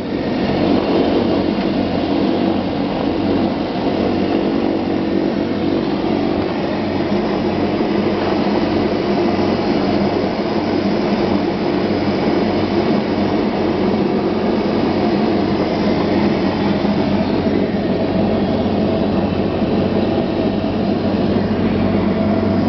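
Twin Walter M601E turboprop engines and propellers of a LET L-410 UVP-E, heard from inside the cabin, running loud and steady at high power during the takeoff roll, with a steady propeller hum under the engine noise.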